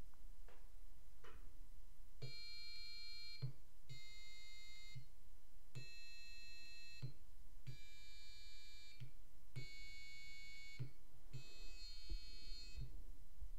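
Piezo buzzer on an Arduino pushbutton keyboard sounding six buzzy electronic tones, one after another, each about a second long with a short gap between, each a different note as a different button is pressed. The notes are meant to run from C to C but are only approximate. Faint clicks from the tactile pushbuttons come with the presses.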